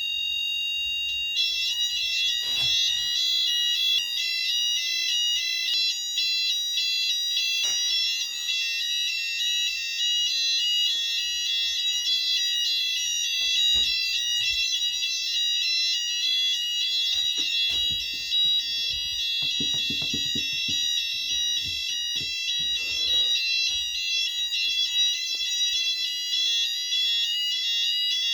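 Several fire alarm sounders of a small fire alarm system going off together: a dense mix of steady and rapidly alternating electronic tones, with more sounders joining about a second in. There are a few faint knocks underneath.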